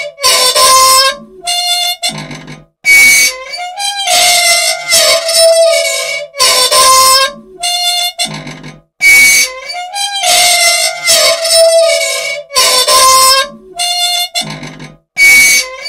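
An old, unlubricated machine squeaking and squealing: dry, metal-on-metal squeals with sliding pitch, in bursts of about a second that repeat in the same cycle roughly every six seconds.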